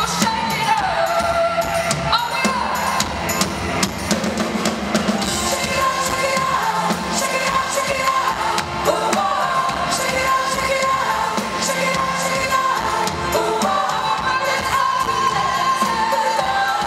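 A live pop band playing while a woman sings lead, recorded from among the audience.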